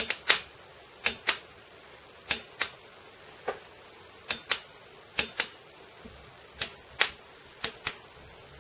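Fuel quantity solenoids on two Bosch VP30 diesel injection pump heads clicking as they are switched on and off straight from a 12 volt battery with no load: sharp clicks in quick pairs, about one pair a second, the solenoid pulling in and letting go quickly.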